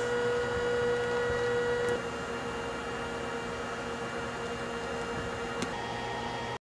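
Steady electrical hum and hiss with a few faint constant tones. It drops a little in level about two seconds in, gives one small click near the end, and then cuts off abruptly.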